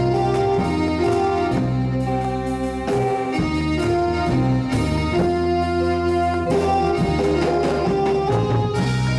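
Live instrumental music played on a Roland electronic keyboard with an organ-like tone: a melody of held notes over a steady bass line.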